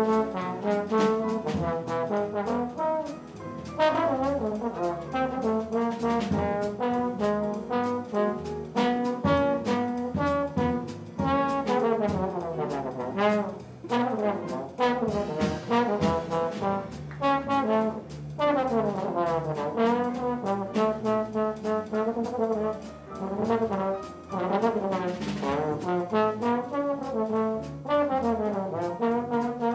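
Small jazz combo playing: a trombone plays a moving melodic line over piano, bass and drums keeping time on the cymbals.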